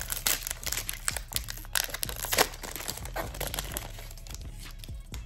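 Foil booster pack wrapper crinkling and crackling as it is opened by hand: a dense run of sharp crackles, loudest about two and a half seconds in, thinning out near the end.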